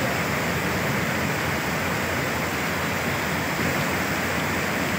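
Muddy floodwater rushing in a fast torrent, a steady, unbroken roar of water.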